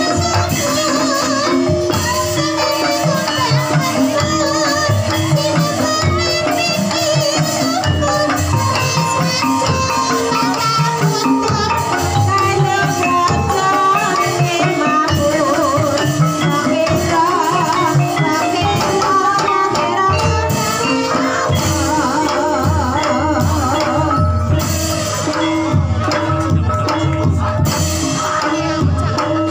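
Live Javanese gamelan music for an ebeg horse dance: bonang kettle gongs struck in running patterns over kendang drums keeping a steady beat, with a wavering melody line above.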